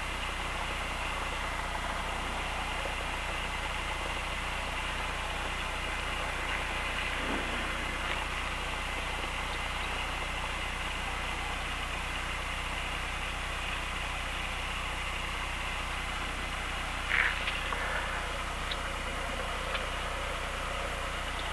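Cessna 172's propeller engine idling at low power while the plane taxis slowly, a steady drone heard inside the cockpit. A short squeak comes near the end.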